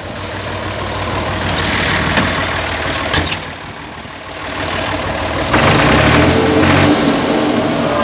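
Massey Ferguson 255 tractor's diesel engine running, heard from inside the cab. About halfway through it drops off for a moment, then picks up and runs louder.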